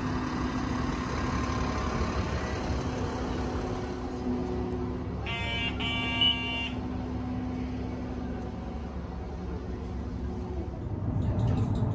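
Steady hum of a city bus. About five seconds in, an IC card fare reader beeps as a card is tapped on it, with a high electronic tone in two parts lasting about a second and a half.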